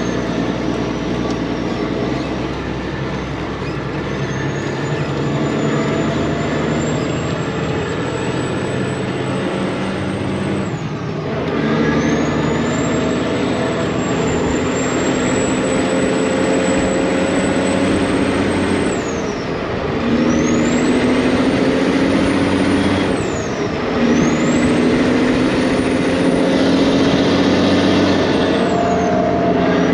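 Truck engine pulling a load of chopped corn across the field, heard from the cab, working up through the gears: a high whine climbs with the revs and drops away at each of about four gear changes.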